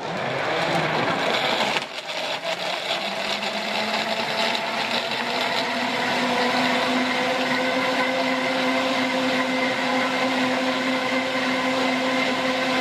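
Countertop blender crushing watermelon chunks and ice cubes, noisy and rough at first. After a brief dip about two seconds in, it settles into a steady whine as the fruit turns to smooth juice.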